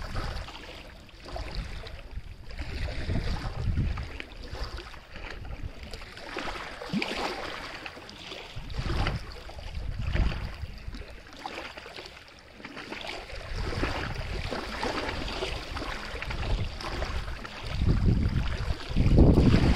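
Moving water swishing and lapping without a break, its level rising and falling unevenly. Several low rumbling swells come through, the loudest near the end, with gusts of wind on the microphone.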